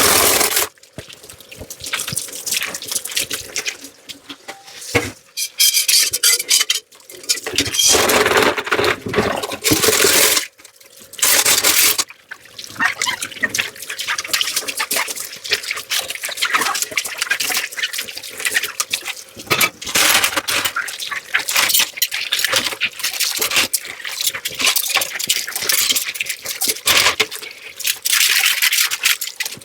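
Tap water running and splashing over dishes in a kitchen sink, in long stretches broken by brief pauses, with a few sharp knocks of dishes.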